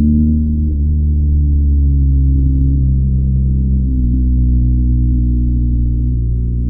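BMW R1250GS boxer-twin engine running under way with its stock exhaust. It gives a steady, low, muffled note whose pitch drifts slightly as the revs ease and pick up.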